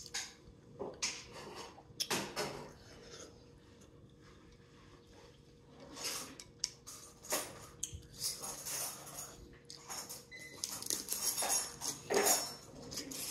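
Close-up eating of sauce-covered crab legs: sharp clicks of shell, a loud one right at the start, then wet slurping and sucking as the meat is drawn out of the shell, with chewing.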